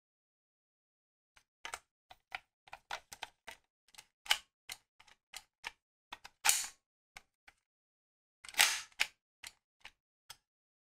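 Irregular plastic clicks and taps from a DX Boost Buckle toy being turned over and gripped in the hands, with two short, louder scraping rubs past the middle.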